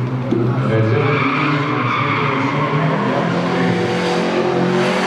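Race car engine running hard at high revs, its pitch shifting slightly, with tyres squealing and skidding as the car is thrown through a tarmac slalom corner.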